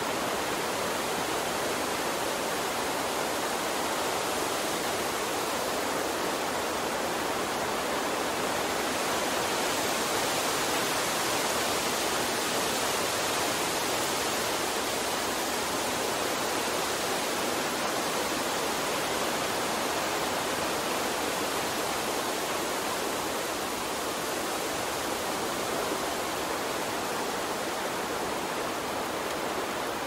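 A steady rushing noise with no pitch, rhythm or separate events, even throughout.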